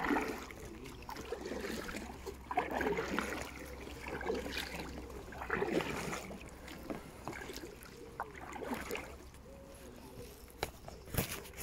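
Kayak paddle strokes dipping into calm river water, giving soft splashes and sloshes every second or two, with a few light knocks.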